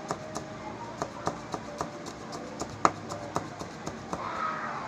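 Kitchen knife chopping a tomato on a plastic cutting board: a run of sharp taps, about three to four a second, the loudest just before the three-second mark.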